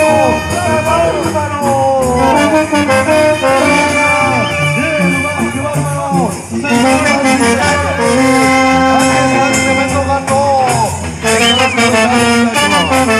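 A live brass band, with trumpets and trombones, playing loudly. Its held notes often bend down at their ends.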